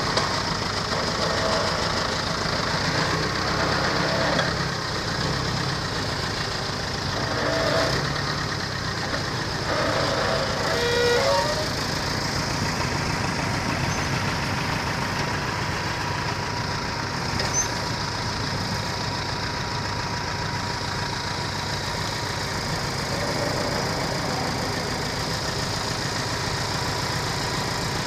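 Heavy diesel machinery running steadily, with a few brief surges in level.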